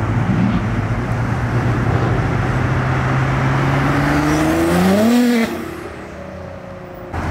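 A performance car accelerating hard down a street, its engine note climbing steadily under load over a loud rush of exhaust and tyre noise. About five seconds in the pitch sweeps up sharply, then the sound drops away to quieter traffic.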